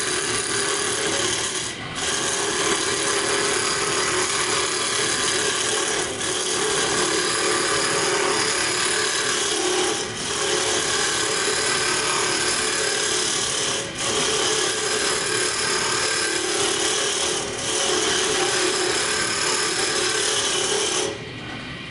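Round-nose scraper cutting a spinning wood spindle on a lathe: a loud, steady scraping hiss over the lathe's running hum. It dips briefly about every four seconds as the tool is worked back and forth, and the cutting stops near the end while the lathe keeps running.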